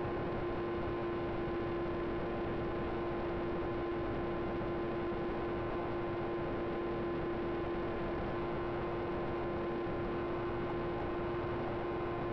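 Electric motor and propeller of an FT Explorer foam RC plane, heard from its onboard camera: a steady whine on one held pitch under a rush of wind noise, throttle constant in level flight.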